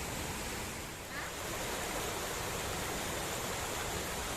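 Steady rush of falling water from a waterfall, an even hiss-like roar.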